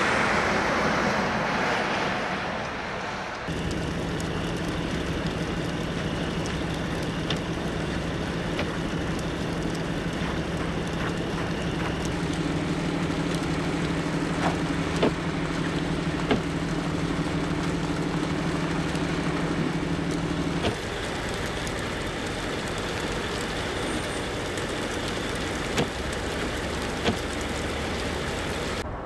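Road noise of traffic on a snowy highway. After a few seconds it gives way to a Ford flatbed tow truck's engine idling steadily with an even low hum, and a couple of light clanks. About two-thirds of the way through the hum stops and fainter road and vehicle noise continues, with two sharp knocks near the end.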